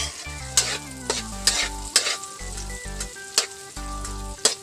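Chopped chili, onion and garlic sizzling in hot oil in a wok while a spatula stirs and scrapes the pan, about two strokes a second. Steady stepping notes of background music sit under the frying.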